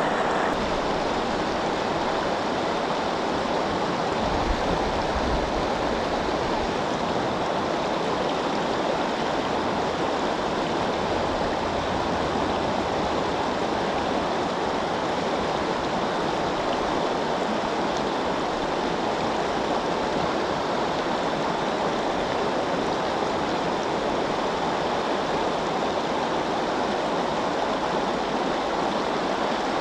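Fast water of river rapids rushing steadily.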